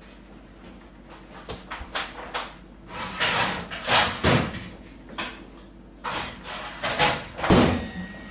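Kitchen cupboards and drawers being opened and shut while cooking equipment is taken out: a string of knocks, clatters and short scrapes, the loudest knock near the end.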